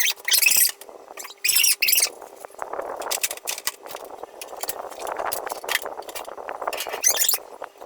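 Refrigerator being cleaned by hand: short hissy scrubbing swishes, then a longer stretch of rustling wiping with many small clicks and knocks of plastic and glass parts being handled.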